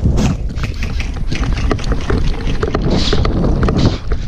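Wind rumbling on the camera microphone with irregular clicks and knocks of handling and gear, and a short hiss about three seconds in.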